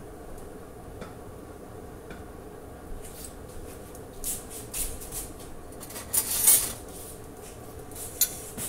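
Dishes and a serving spoon clattering and scraping against a plate in a string of short scrapes, starting about three seconds in and loudest a little past the middle. A steady hum runs underneath.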